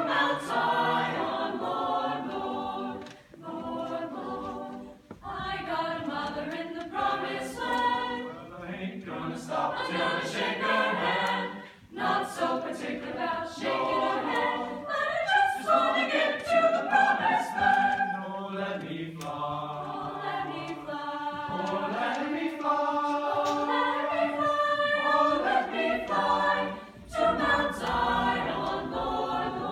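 Mixed chamber choir of men's and women's voices singing a spiritual a cappella in close harmony, phrase after phrase with brief breaks between them.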